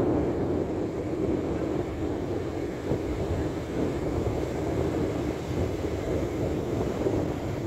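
Steady roar of breaking sea surf mixed with wind rumbling on the microphone.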